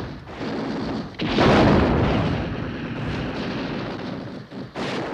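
Artillery fire: a heavy boom about a second in that rumbles away over the next couple of seconds, with a second boom starting right at the end.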